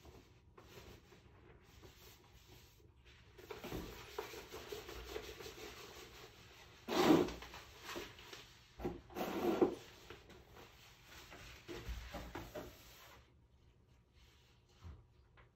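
Sheet of vinyl contact paper rustling and rubbing against a door as it is held up and pressed flat, with several louder crinkling rubs in the middle.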